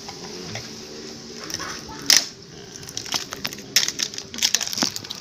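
Irregular light clicks and taps of small hard objects being handled, one sharper knock about two seconds in.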